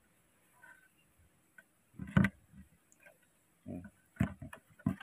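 A small plastic milk bottle tips over onto wooden boards, giving a sharp knock about two seconds in, followed by several softer knocks and thumps near the end.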